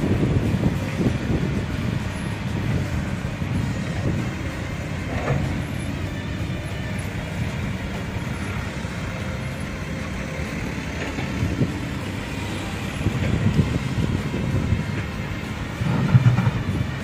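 Diesel engines of two 20-ton Kobelco SK200 hydraulic excavators running under load as they dig and load soil into dump trucks, a steady low rumble that swells louder near the end.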